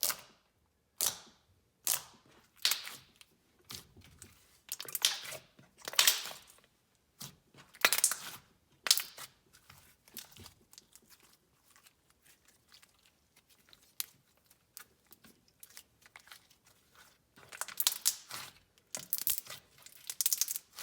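Thick, glossy slime being squished, poked and stretched by hand, giving irregular crackles, clicks and wet popping bursts.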